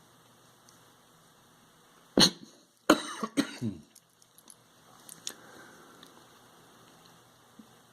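A person coughing several times in a short fit, starting about two seconds in, then a few faint clicks.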